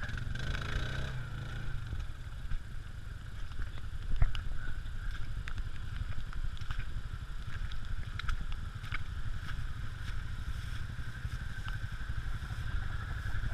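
Off-road vehicle engine running steadily with a low rumble, with scattered clicks and knocks over it.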